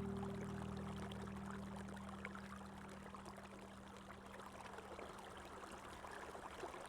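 Running water flowing steadily, an even rushing sound, under a sustained music chord that slowly fades away over the first few seconds.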